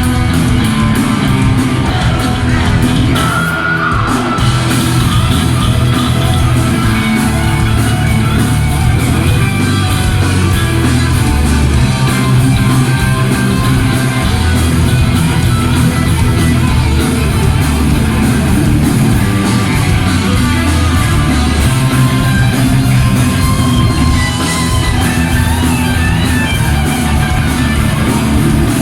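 Heavy metal band playing live at full volume: distorted electric guitars, bass and drums, with shouted singing over them.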